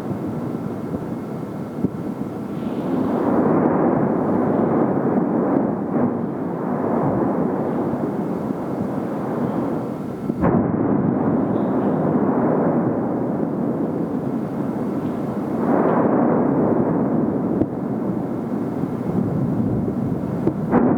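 Cumbre Vieja volcano erupting: a continuous noise that swells and fades in waves, with one sharp blast about halfway through.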